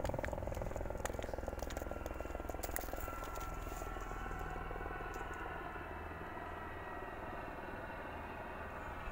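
Steady low rumble of road traffic, with a few light clicks in the first few seconds.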